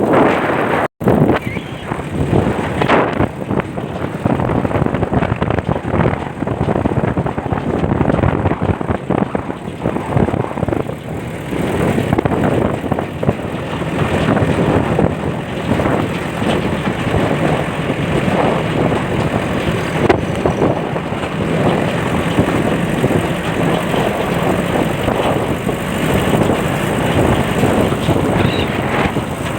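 Wind rushing and buffeting against a moving car, over the car engine's steady running. The sound drops out for an instant about a second in.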